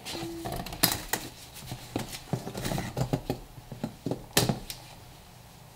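A pocketknife cutting the plastic packing straps on a cardboard box: a scatter of sharp clicks and snaps with rustling of the straps and cardboard, the loudest snaps near the start and about four seconds in.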